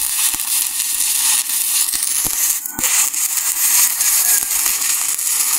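Shielded metal arc (stick) welding with an E7018 electrode: the arc burns with a steady crackling hiss and scattered sharp pops, held at a short arc length during a vertical-up weld, and dips briefly about halfway through.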